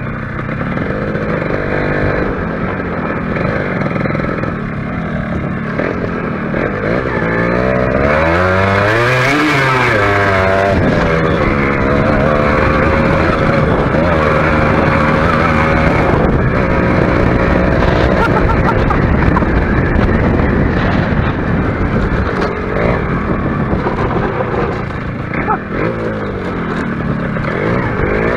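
Suzuki Shogun motorcycle engine running as it is ridden over a rough dirt track, its pitch rising and falling with the throttle, with one clear rev up and back down about a third of the way in. A steady rush of wind and road noise runs under it.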